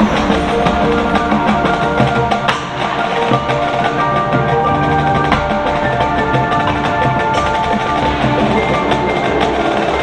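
High school marching band playing its field show: many held pitched notes over percussion, with a few sharp strikes cutting through.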